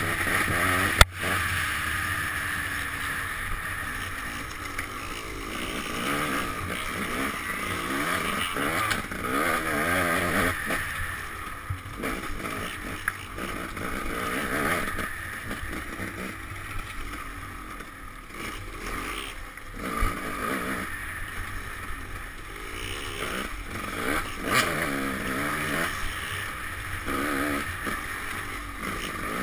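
Dirt bike engine heard from the rider's helmet camera, revving up and down over and over as the throttle opens and closes, with a steady rush of wind noise on the microphone. There is a single sharp knock about a second in.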